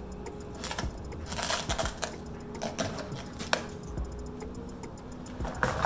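Handling noises as grilling tools are worked loose from an aluminum carrying case: scattered clicks, light clinks and rustling.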